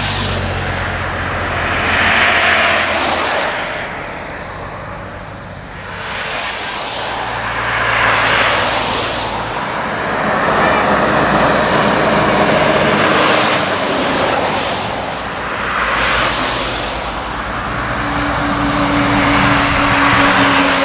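Road traffic passing on a highway: several vehicles go by one after another, each swelling with tyre and engine noise and fading away. Near the end a Volvo semi-truck approaches, its diesel engine adding a steady low drone.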